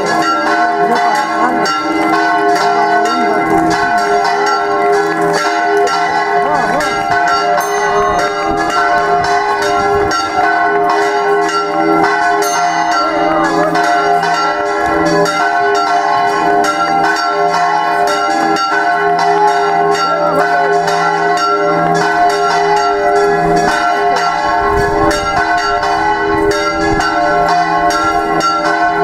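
Church bells ringing in a fast, continuous peal, the strokes coming thick and overlapping in a loud, steady ringing.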